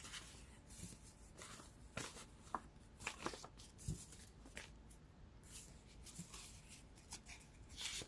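Tarot cards being shuffled and handled: faint, irregular soft rustles and light taps.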